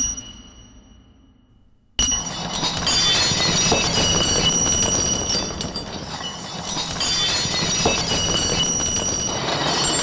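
A sharp metallic hit that rings and fades away, then, about two seconds in, a loud, dense, steady metallic clatter with ringing tones in it.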